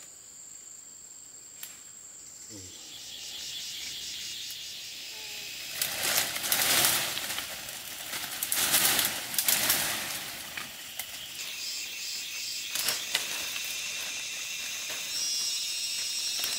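Leafy vines rustling and stems snapping as shoots are pulled and picked by hand, in several bursts with the loudest in the middle. Insects trill steadily and high-pitched behind them.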